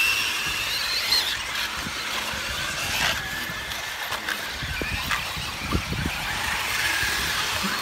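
Electric RC race trucks running on a dirt track, their motors whining high and rising and falling in pitch as they speed up and slow down, with a few short knocks.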